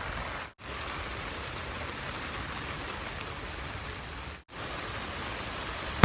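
Steady rain falling, an even hiss that drops out for an instant twice, about half a second in and about a second and a half before the end.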